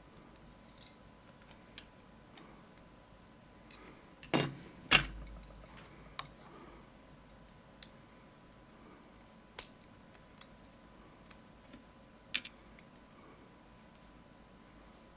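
Small metal lock parts of a disassembled Medeco lock clicking and clinking as they are handled: scattered light clicks, two louder knocks about four and five seconds in, and sharp clicks near ten and twelve seconds.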